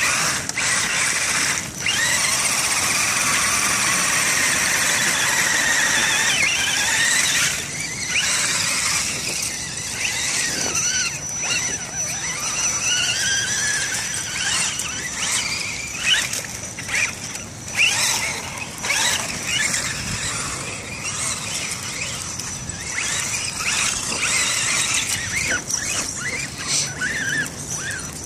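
Electric drive motors and gearing of two radio-controlled crawler trucks, an Axial Wraith and an Axial SCX10, whining as they drive through mud, the pitch rising and falling with the throttle. A thin steady high tone joins in about halfway through.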